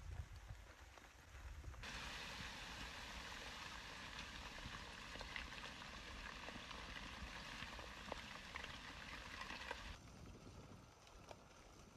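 Lava flow crackling: a steady frying-like hiss scattered with small sharp pops. It starts abruptly about two seconds in and cuts off abruptly near the end, leaving a fainter hiss.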